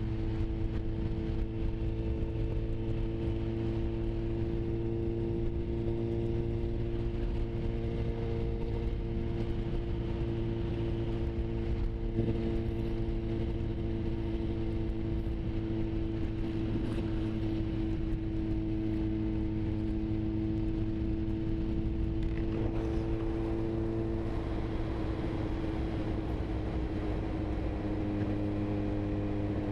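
Sport motorcycle engine running steadily at cruising speed, with wind and road rush. The engine note drops slightly about three-quarters of the way through, as the throttle eases.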